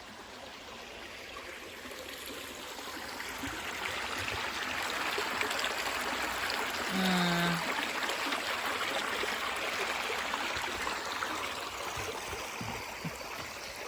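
Creek water flowing and trickling, growing louder toward the middle and easing off near the end. A short low hum, like a voice, comes about halfway through.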